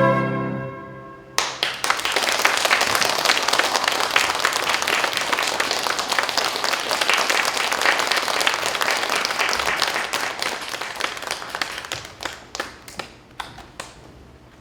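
The last held note of flute music fades out, then audience applause breaks out about a second and a half in, holds steady, and thins to a few scattered claps near the end.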